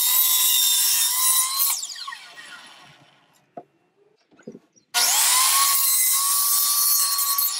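Electric miter saw cutting PVC pipe twice. One cut ends about two seconds in and the blade winds down with a falling whine. After a couple of light knocks, a second loud cut starts about five seconds in.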